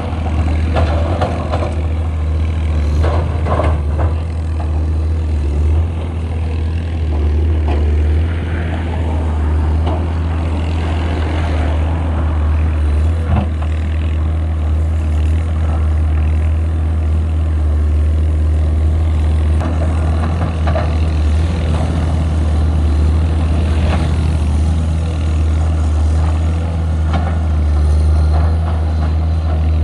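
Diesel engine of a Komatsu PC210LC excavator running steadily, a constant low drone, with occasional short clanks and knocks, the loudest about 3 to 4 seconds in and near 13, 21 and 24 seconds.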